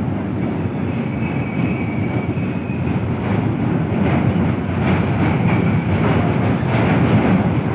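Train crossing a steel truss bridge, heard from aboard: a loud, steady rumble of wheels on the rails and bridge girders with dense clatter.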